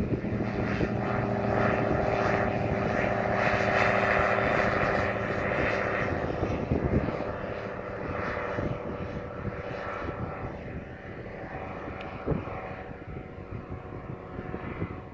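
Storch ultralight airplane's engine and propeller at full takeoff power, a steady drone that is loudest a few seconds in as it passes low after lift-off, then fades as it climbs away.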